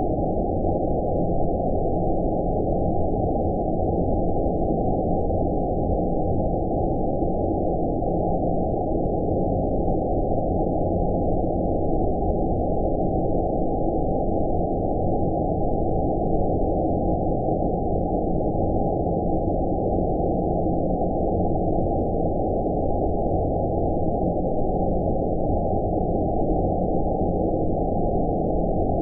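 Steady, deep, muffled 'outer space' sleep noise: even noise with everything above about 1 kHz cut away, so it sounds like a low, dull hiss.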